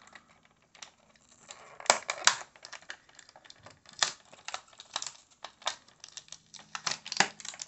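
Thin clear plastic blister tray crackling and clicking as fingers flex and pull it to work small accessories loose. The clicks come irregularly, loudest at about two seconds in.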